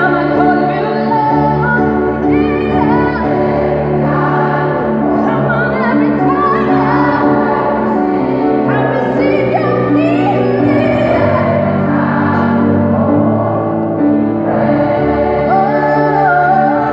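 Gospel choir singing sustained chords with keyboard accompaniment, while a female soloist sings a lead line that bends and wavers in pitch above them.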